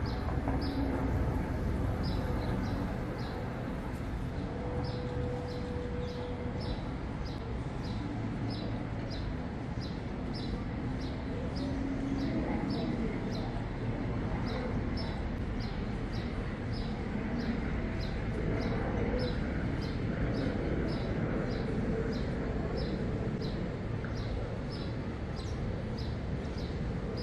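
Waterfront city ambience, a steady hum of distant traffic and harbour, with a short high chirp repeating evenly about twice a second throughout.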